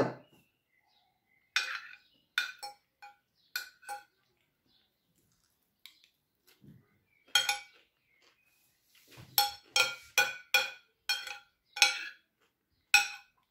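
Metal fork and spoon clinking against a plate while eating: a few scattered clinks early on, then a quick run of about ten clinks in the last few seconds, each with a short ring.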